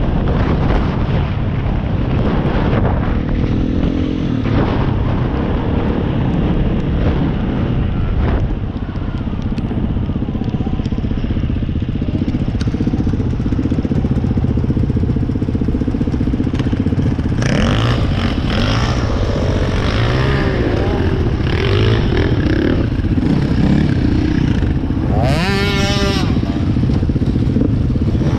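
Dirt bike engines running hard, the throttle opening and closing. In the second half the engine pitch swings up and down, most sharply near the end.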